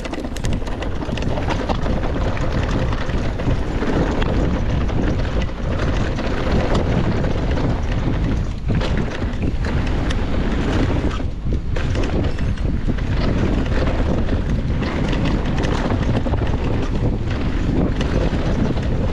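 Wind buffeting the microphone over the rumble of a Rocky Mountain Altitude Powerplay electric mountain bike's tyres on a dirt and stone trail during a fast descent, with frequent knocks and rattles from the bike over bumps.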